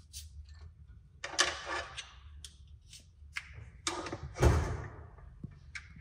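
Clatter of objects being handled: scattered clicks and short scraping rustles, with one heavy thud about four and a half seconds in.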